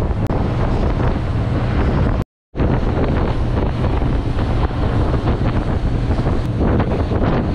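Wind buffeting the microphone on a fishing boat running fast at sea, over the rush of its wake and the engine. The sound cuts out for a moment a little over two seconds in.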